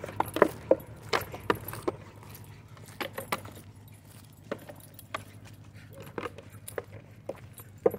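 Dog shaking and biting a plastic bottle toy: sharp plastic crinkles and clatters, a quick run of them in the first two seconds, then single crackles about once a second.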